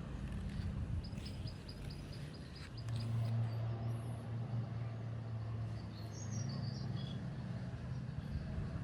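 Quiet background with a low steady hum and birds chirping, including a quick run of short high notes near the start.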